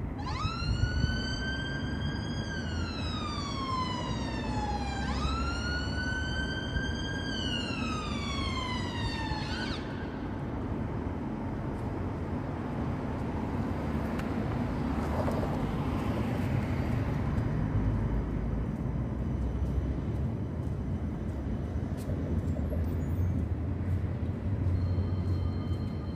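An emergency-vehicle siren wails through two slow rise-hold-fall cycles over the first ten seconds, then stops, over a steady low traffic rumble. Towards the end a CAF Urbos tram draws up with a faint steady whine.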